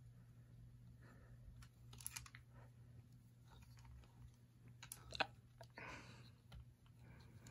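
Faint, scattered clicks and taps of hard plastic as the parts of a Power Rangers Dino Fury Zord toy robot are handled and adjusted, over a low steady hum.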